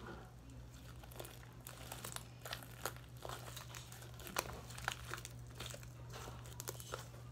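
Slime being pulled apart and kneaded by hand, giving a stream of irregular, sharp crackles and pops, the loudest about four seconds in.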